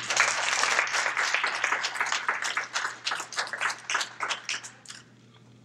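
Audience applauding: dense clapping that thins out to scattered single claps and dies away about five seconds in.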